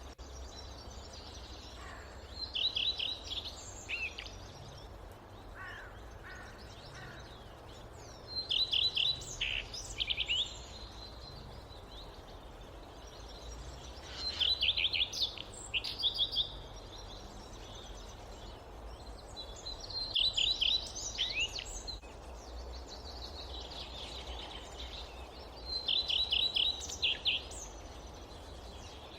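A songbird repeating the same short phrase of quick, rapidly repeated notes five times, about every six seconds, over a steady low forest ambience.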